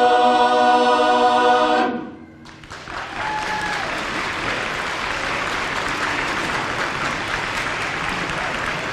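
A barbershop chorus holds the final a cappella chord of a song and cuts it off cleanly about two seconds in. After a brief hush, the audience breaks into steady applause, with a short cheer from one voice soon after it starts.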